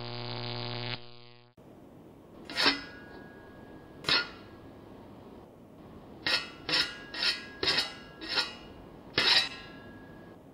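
A steady buzzing hum that cuts off about a second in, then about eight sharp metallic clinks of metal striking metal, each ringing briefly. The first two are spaced apart and the last six come in quicker succession.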